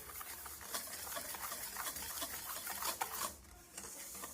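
Wire whisk stirring dry cornbread ingredients in a mixing bowl: a quick, dense run of clicks and scrapes against the bowl, with a short pause a little over three seconds in.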